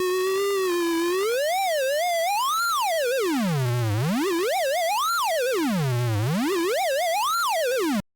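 Synthesized tone with stacked harmonics gliding continuously up and down in pitch, a sonification of South Africa's border outline: it swoops from low to high and back, with three high peaks, two deep dips and small wiggles along the way, then cuts off suddenly near the end.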